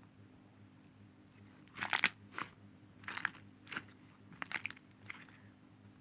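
Slime putty squeezed and pressed by hand, giving a series of sharp clicks and crackles. They begin a little under two seconds in and come about one every half second to a second.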